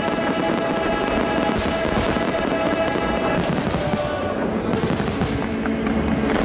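Fireworks display crackling continuously, with several sharper bangs, over show music with long held notes.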